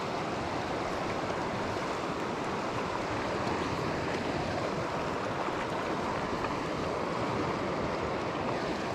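River water rushing steadily over a stony bed, an even, unbroken sound.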